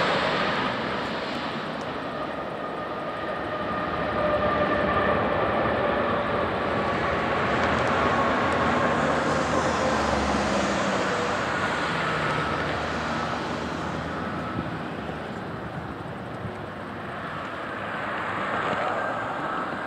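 Jet engines of a TAP airliner during its landing rollout: a steady rushing roar with a slowly falling whine, swelling about four seconds in and easing off in the second half.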